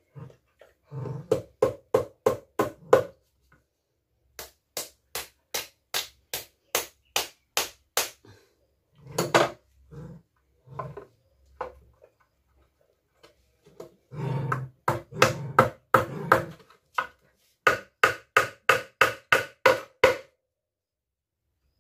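Nails being hammered into a small wooden squeegee handle: runs of sharp metal-on-wood strikes, about three a second, broken by short pauses.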